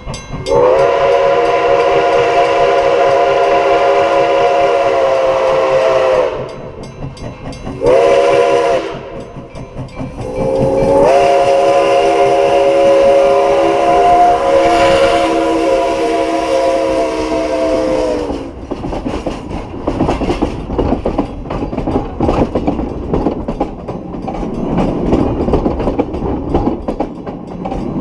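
Nickel Plate Road 765, a 2-8-4 Berkshire steam locomotive, sounding its chime whistle close by: a long blast, a short one and a long one, the pattern that ends a grade-crossing signal. After the whistle stops, the train's cars clatter and rumble over the rails as they roll past.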